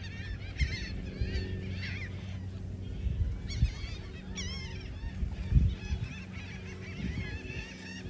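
A flock of gulls calling, many short high cries overlapping throughout, over a steady low hum. A few dull low thumps sound in between, the loudest about five and a half seconds in.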